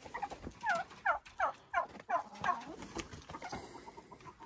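Domestic turkey calling: a series of about six short notes, each falling in pitch, over about two seconds.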